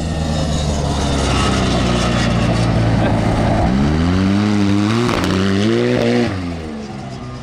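Turbocharged Arctic Cat Z1 engine in a four-seat side-by-side sliding in circles on pavement. It holds a steady engine speed, then revs up and down unevenly for a couple of seconds with a pop or two, and drops off sharply about six seconds in. The popping is probably from a low fuel level.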